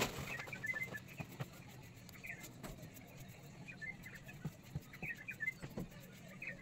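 Light scraping and ticking of a small knife peeling a potato by hand, with faint bird chirps in short clusters recurring every second or so.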